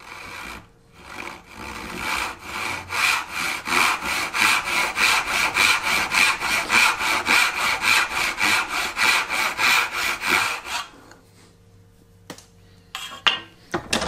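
Brass-backed dovetail saw cutting through a hardwood board held in a bench vise, a fast, even run of hand strokes that stops about eleven seconds in. A few light knocks follow near the end.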